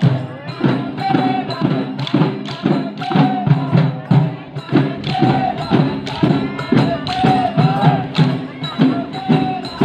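Folk festival music: dhol drums beating a fast, steady rhythm, with a short high held note returning every second or two.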